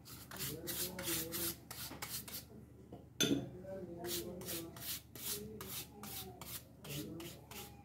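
A stiff paintbrush scrubbing back and forth over a wooden cutout, about four quick scratchy strokes a second, with one sharp knock about three seconds in.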